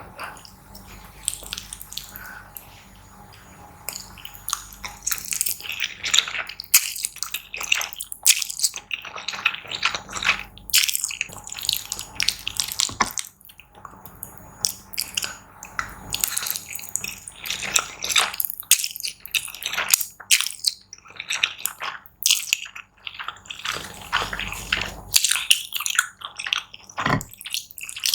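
Close-miked eating sounds: wet chewing and mouth noises, many irregular smacks and crackles.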